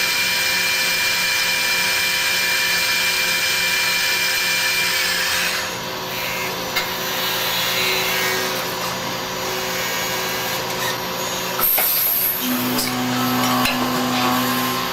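CNC lathe running with a steady machine whine made of several held tones over a hiss. About five and a half seconds in, the hiss and a high tone drop away, leaving a lower, quieter running sound. Near the end a new low hum comes in.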